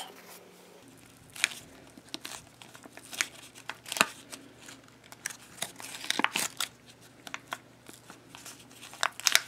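Pleated paper cupcake-liner wrapper crinkling and crackling in irregular rustles as fingers try to peel it off a foam squishy sandwich, the liner glued fast to the foam.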